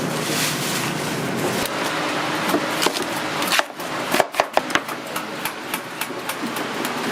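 A steady hiss, then from about three and a half seconds in a run of sharp knife strokes on a chopping board, several a second, as food is chopped.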